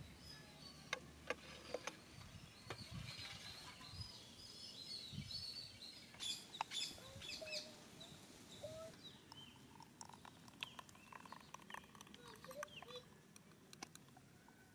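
Faint outdoor ambience: birds chirping and calling now and then, with a few light clicks from plastic cups and balls being handled.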